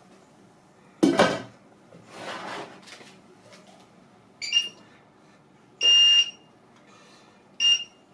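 A metal pot lid clanks down onto a cooking pot about a second in. Then an electric hob's touch controls beep three times as they are pressed: a short beep, a longer one, and another short beep, all at the same high pitch.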